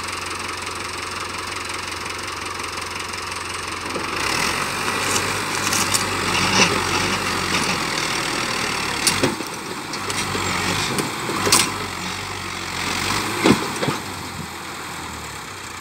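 Farm tractor's diesel engine running, pulling harder from about four seconds in as a chain drags a tree stump out of the ground. Several sharp cracks of roots and wood snapping come as the tree is torn loose and tips over.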